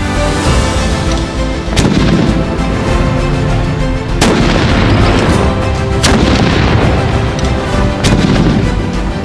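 A muzzle-loading field cannon firing, four blasts about two seconds apart, over background music.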